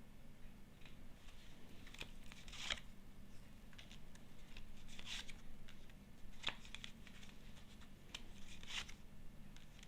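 Faint, irregular rustles and light snaps of Lenormand fortune-telling cards being shuffled and drawn from the deck.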